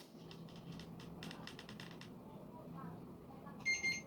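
A few faint clicks from handling, then a short electronic beep near the end, during a check of the quadcopter's motors.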